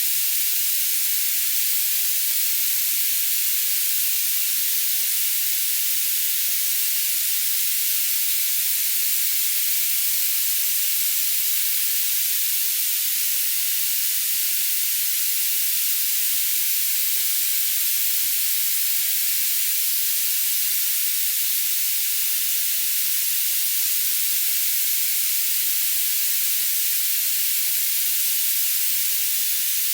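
Steady, high-pitched hiss of filtered noise used as a tinnitus masker. It has no low sound at all, grows brighter toward the top, and does not change.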